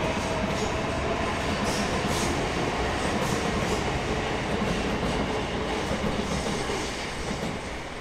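High Capacity Metro electric train running along the tracks, wheels clacking over the rail joints with a steady rumble. The noise eases off near the end.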